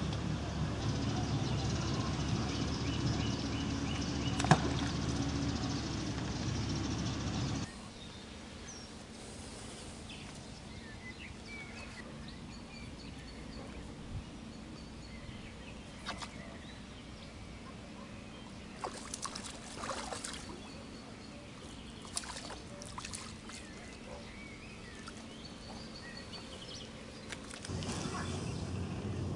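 Riverbank ambience during float fishing: a steady noisy hiss with one sharp click about four seconds in, then an abrupt drop to quieter ambience with short high chirps and scattered light clicks, before the louder hiss returns near the end.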